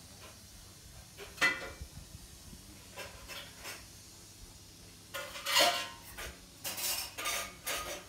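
Scattered clinks and clatters of hard objects knocking together: a sharp one about a second and a half in, then a busy run of them through the second half, over a faint steady low hum.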